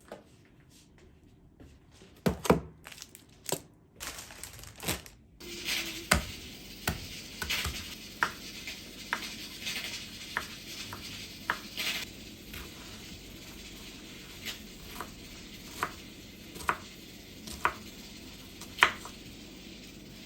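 A few scattered sharp clicks and taps, then short, sharp knocks at an even pace of roughly one a second over a faint steady hiss.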